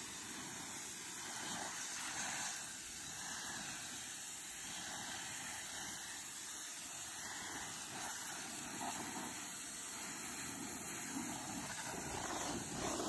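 Pressure-washer jet spraying the bottom of a white picket fence: a steady hiss of high-pressure water.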